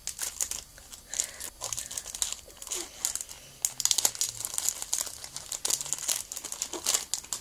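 Foil Pokémon booster pack wrapper crinkling and being torn open, a steady run of sharp crackles.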